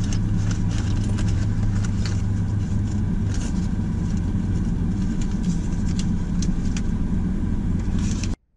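A car driving along, heard from inside the cabin: a steady low rumble of engine and road noise with scattered light clicks and rattles. It cuts off suddenly near the end.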